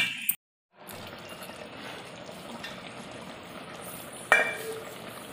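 Chicken curry simmering in an electric rice cooker pot, a steady sizzling hiss, after a short clatter at the start as the steel lid comes off; a single sharp knock about four seconds in.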